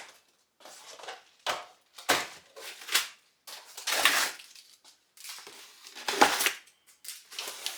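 Packaging of a flat-packed dumbbell rack being torn open and handled: a run of irregular crunching and ripping noises with a few sharp cracks, the loudest one late.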